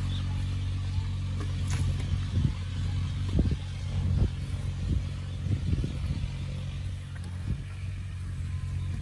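A digging hoe chopping into dry earth several times, short dull strikes with some scraping of soil. A steady low engine-like hum runs underneath throughout.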